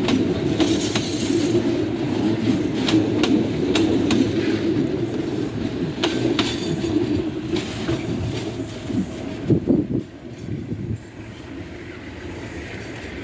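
Freight train's steel-wheeled hopper wagons rolling past: a steady rumble with sharp clicks as the wheels cross rail joints. The last wagon passes about ten seconds in, and the sound drops off suddenly as the train draws away.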